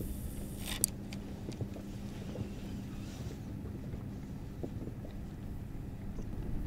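Spinning reel's bail clicking shut about a second in, just after a cast, over a low steady rumble with a faint hum.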